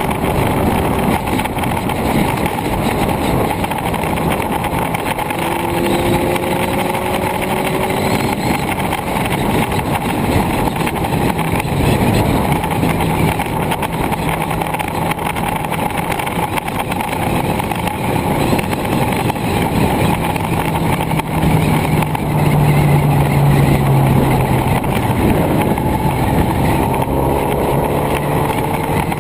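Wind rushing over a camera mounted on a moving vehicle, with an engine drone underneath that shifts in pitch a few times.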